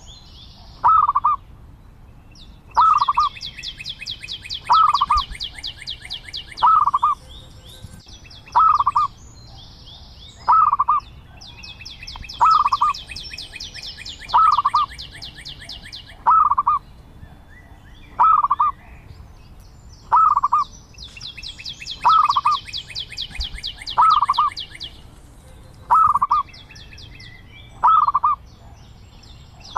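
Zebra dove calling: a short note repeated about every two seconds, with a rapid high trill of a few seconds breaking in three times.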